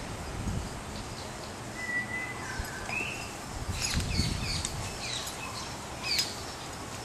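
Birds chirping outdoors: short whistled calls, a couple of clear sliding notes around two and three seconds in, then a busier flurry of chirps. A low rumble comes about half a second in and again around four seconds.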